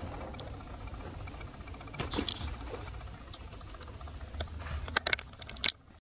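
Close handling noise: a low rumble with scattered clicks and rustles. Near the end comes a quick run of louder rustles and knocks as a toy poodle puppy's fur and face press against the microphone, then it cuts off suddenly.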